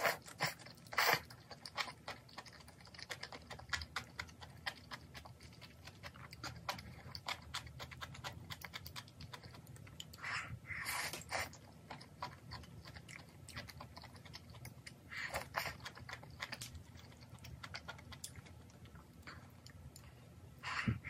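Close-miked chewing of malatang noodles and vegetables, with many small wet clicks and a few louder slurps from a small bowl spread through.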